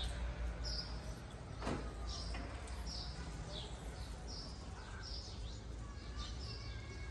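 Small birds chirping over and over, short high notes falling in pitch, several each second, over a low steady hum of street background noise, with a single click about two seconds in.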